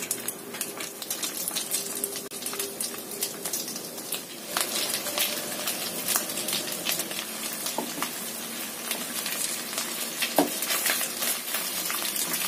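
Thin cornstarch-coated beef slices sizzling as they are dropped into hot oil in a wok, the sizzle growing louder and denser about four and a half seconds in as the pan fills with meat.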